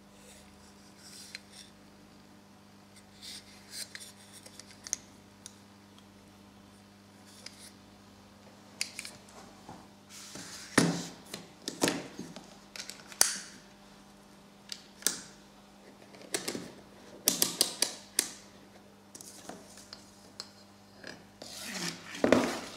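Handling noises: scattered clicks and knocks as the small wooden charger board with its aluminium heatsink, its wires and crocodile clips are handled and set down. The knocks come in dense clusters from about halfway on, the loudest near the end, over a faint steady hum.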